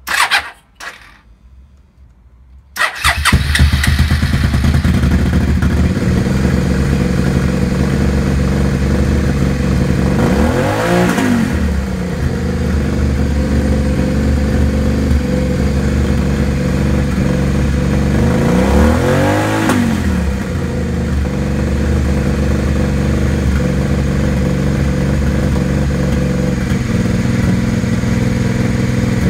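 Suzuki SV650's 645 cc V-twin engine starting about three seconds in after a couple of short clicks, then idling steadily. It is revved up and back down twice, about ten and nineteen seconds in.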